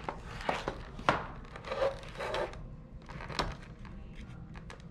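Plastic blister pack and cardboard backing of a toy package being picked at and pried open by hand: irregular clicks, scratches and crinkles.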